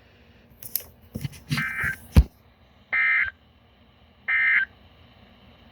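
Emergency Alert System end-of-message signal: three short bursts of the warbling digital data tone, about 1.3 seconds apart, marking the end of the alert. Clicks and crackle come just before the bursts, and a sharp click comes near the end.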